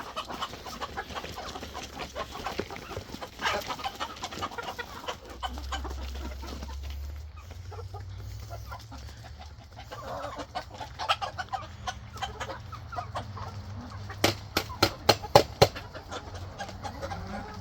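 Backyard chickens clucking softly while they eat food scattered for them, with a quick run of sharp taps about three quarters of the way through.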